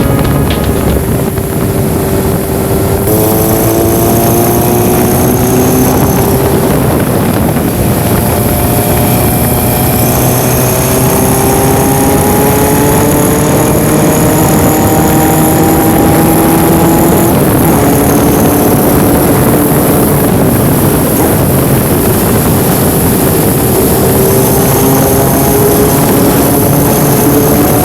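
Honda CB1000SF inline-four engine running under way, its pitch rising slowly and then dropping back at each of several gear changes.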